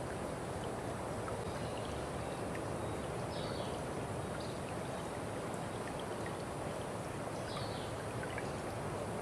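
Steady rush of running water, like a stream, with a few faint high chirps over it.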